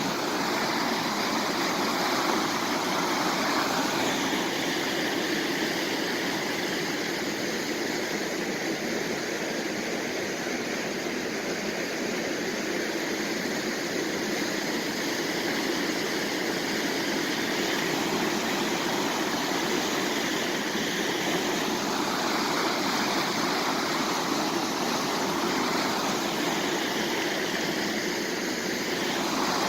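Swollen, flooded creek rushing: a steady, even roar of fast-moving water.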